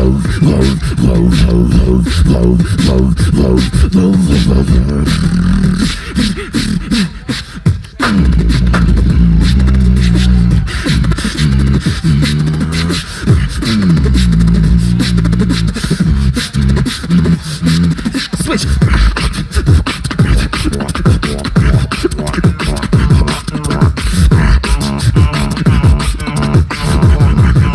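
Two beatboxers performing a duo routine through microphones and a PA: vocal bass lines that step between notes under kick, snare and hi-hat sounds. The beat thins out and drops lower about six seconds in, then comes back in full about two seconds later.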